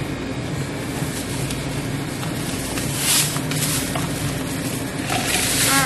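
Paper rustling as banknotes and an envelope are handled, in short bursts about three seconds in and again near the end, over a steady low hum.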